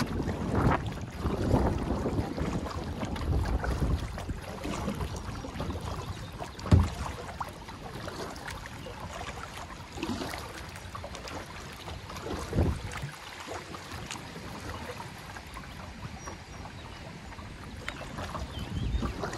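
A kayak being paddled along: water splashing and lapping around the hull with each stroke, and wind rumbling on the microphone. A sharp knock about seven seconds in, and a softer one near thirteen seconds.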